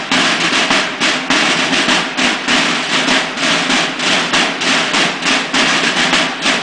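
Snare drum section of a Mexican banda de guerra (drum and bugle corps), many drums playing together in a steady marching beat with rolls between the accented strokes.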